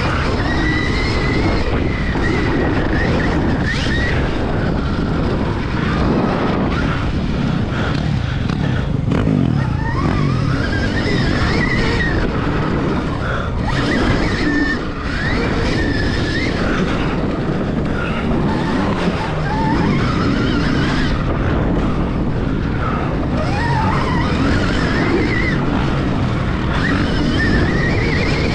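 Motocross bike ridden around a dirt track, heard through an on-board action camera: its drive note rises and falls in pitch again and again as the rider accelerates and backs off, over a steady rush of wind and track noise.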